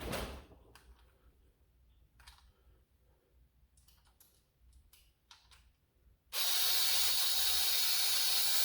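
Scattered light clicks of small parts and screws being handled, then about six seconds in a small electric screwdriver starts and runs steadily with a high whine, driving a screw.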